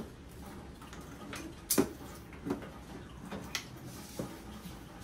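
A handful of light clicks and knocks, about five, the loudest a little under two seconds in, as a clear plastic hose is handled and laid on a tiled floor.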